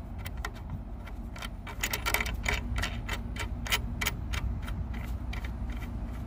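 Irregular metallic clinks and rattles of small hardware being handled while mounting a sign on a truck, thickest about two seconds in, over a steady low rumble.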